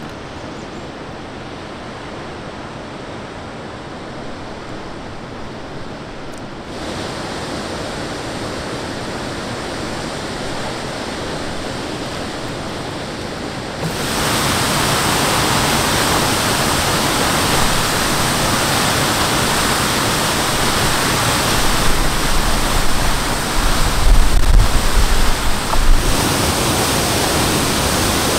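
Waterfall rushing steadily, loud throughout. It gets louder in two sudden steps, about seven and fourteen seconds in, with some low buffeting a few seconds before the end.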